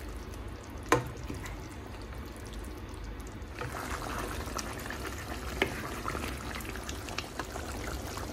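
Thick stew simmering in a pot with a crackly bubbling. One sharp knock of a utensil against the pot about a second in, the loudest sound, and the bubbling grows busier about three and a half seconds in.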